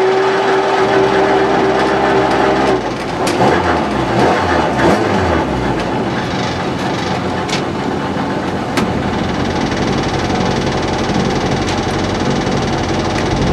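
Rally car engine heard from inside the cabin, holding steady revs, then dropping off about three seconds in as the car slows on gravel, and idling for the rest. A few sharp clicks are heard along the way.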